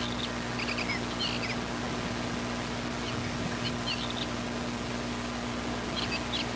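Short high chirps in a few quick clusters, at the start, around a second in, at about three and a half seconds, and near the end. Underneath is the steady hiss and low hum of a security camera's tape recording.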